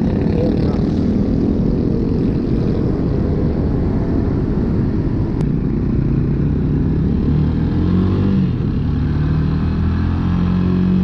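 Rusi Classic 250 motorcycle engine running at low speed under the rider, with road and traffic noise. About halfway through the engine note rises and falls as the bike pulls away and accelerates.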